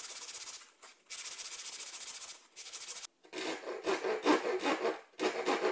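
Sandpaper rubbed back and forth along a wooden cue dowel with a fine, hissy scraping. About three seconds in, this gives way to a coarser, fuller scraping of a hand tool cutting into the end of the dowel, in quick strokes about three a second.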